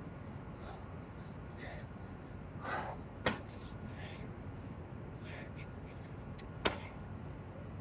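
A man breathing hard in short puffs while resting between burpees, with two sharp clicks about three and a half seconds apart.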